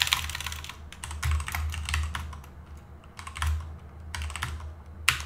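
Computer keyboard typing in short bursts of keystrokes with brief pauses between them, as a terminal command is typed.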